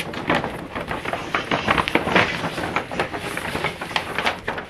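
Tissue paper rustling and crinkling as it is pulled out of a paper gift bag, a dense run of irregular crackles.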